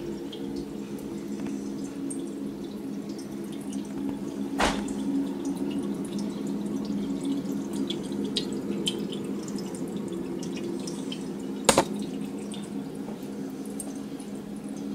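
Aquarium water dripping and trickling over a steady low hum. A sharp click about four and a half seconds in and a double click near twelve seconds.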